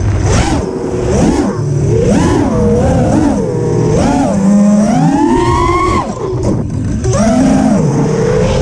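FPV freestyle quadcopter's brushless motors and propellers whining under hard throttle changes, the pitch rising and falling again and again as the quad rolls, flips and dives, with a brief drop about six seconds in.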